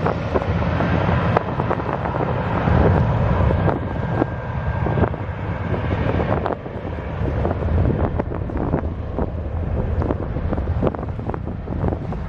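Jet airliner engines running, with a thin whine that stops about five seconds in, under heavy wind buffeting on the microphone.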